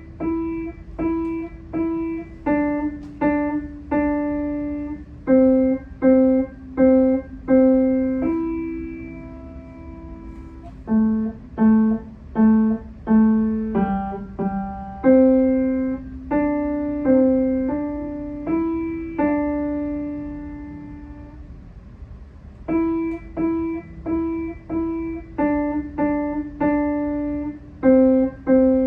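A piano playing a slow melody, with notes struck mostly one or two at a time and each fading after it is struck. A few longer held notes come about a third of the way in and again past the middle.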